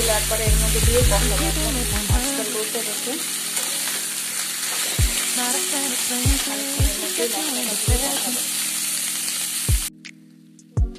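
Potato wedges sizzling in hot oil in a kadai while a spatula stirs them, knocking against the pan several times. The sizzle cuts off suddenly near the end.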